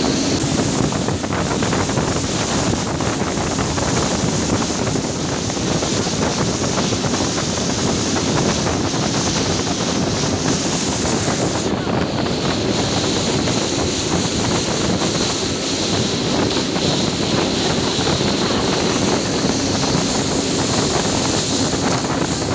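Motorboat running at speed on a river: a steady engine drone mixed with the rush of spray and wake water and wind buffeting the microphone.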